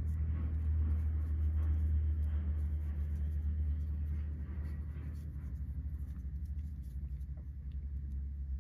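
A steady low hum, easing a little about halfway, under faint soft rustling and small ticks of a steel crochet hook drawing white yarn through single crochet stitches.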